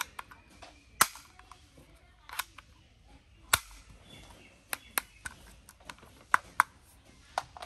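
Plastic clicks and snaps from a yellow M11 spring-loaded toy dart pistol as its orange priming slide and trigger are worked by hand. There is a sharp snap about a second in and another a little past the middle, with several lighter clicks after them.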